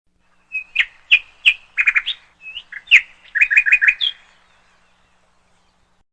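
A bird chirping: a quick series of short, sharp calls and little trills lasting about three and a half seconds, then stopping.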